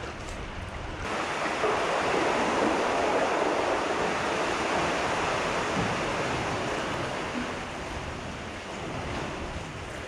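Ocean swell washing into a sea cave at the waterline: a steady rushing wash that comes in abruptly about a second in, is loudest over the next few seconds, then eases off.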